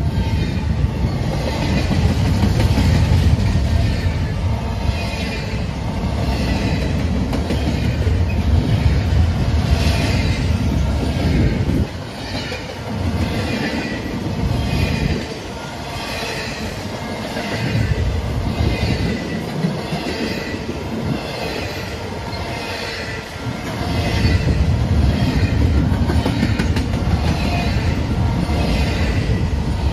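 Double-stack intermodal container well cars of a freight train rolling past: a continuous heavy rumble of wheels on rail with a regular clicking rhythm of about one beat a second. The low rumble eases for a stretch midway, then swells again near the end.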